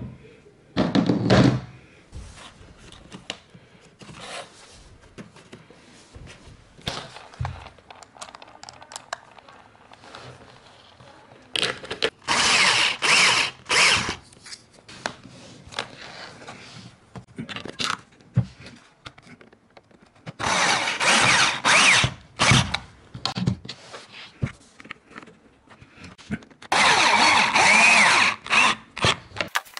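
A claw hammer knocking a plastic wall dowel into its drilled hole about a second in, then a cordless drill-driver running in three bursts of about two seconds each, driving screws through a plastic skirting board into the wall. Small handling clicks come between the bursts.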